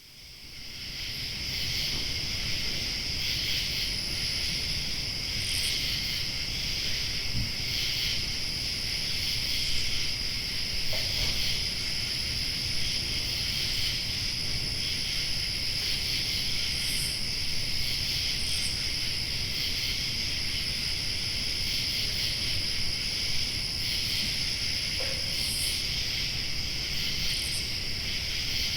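Summer-night insect chorus: a dense, steady trilling that fades in over the first couple of seconds, with a thin high tone above it and a few brief higher chirps scattered through.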